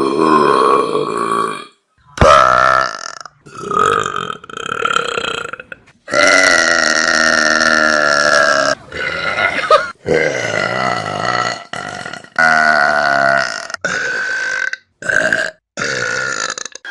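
A rapid series of loud human burps, about a dozen in quick succession with short silent gaps between them, from different people. One long drawn-out burp lasts nearly three seconds, a little over a third of the way through.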